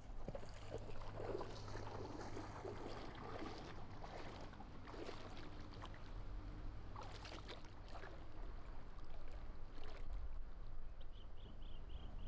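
Water splashing and sloshing in irregular bursts. A short run of high chirps comes near the end.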